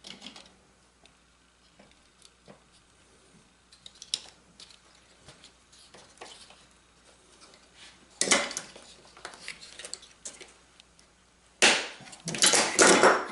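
A wooden divider grid being pressed and worked down into a plywood tray: light wood clicks, then two spells of louder wood rubbing and knocking, the loudest near the end, as the dividers are seated.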